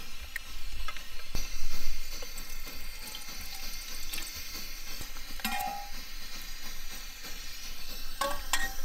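Water pouring from a plastic bottle into a camp cooking pot, over the steady rushing of a pressurized liquid-fuel backpacking stove burning beneath, a sound likened to a train.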